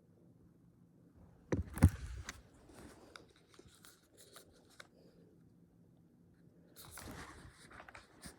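Hands handling small phone parts: a sharp knock about two seconds in, then scattered light clicks and scrapes, with another bout of scraping and clicking near the end.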